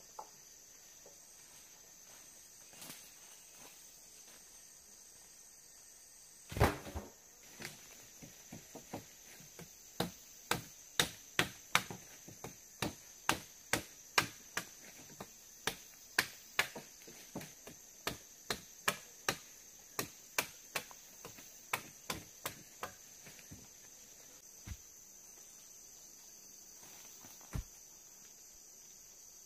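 A run of sharp chopping strokes, about two a second, with the wood being cut for a jungle shelter, starting about ten seconds in and tapering off after about twenty-three seconds, with a single heavier thud a few seconds before they begin. Behind it is a steady, high-pitched drone of insects.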